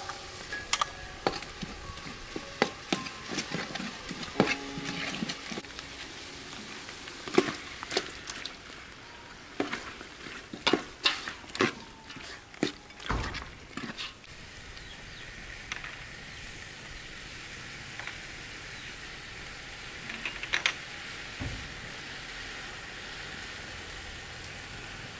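Chicken curry sizzling in a large steel pot, with a run of clinks and knocks against the pot as the chicken goes in and is stirred in the first half, then a steady sizzle.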